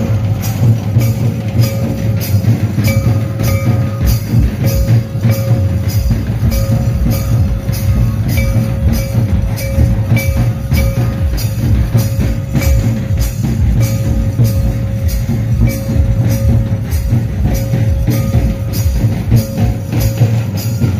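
Folk dance music played on barrel-shaped hand drums, struck in an even beat of about two strokes a second, with a steady high note held over the beat and breaking off every few seconds.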